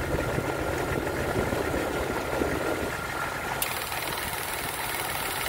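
Jeep Cherokee XJ engine idling under the open hood with the air-conditioning compressor running, a steady rumble with a thin steady whine over it.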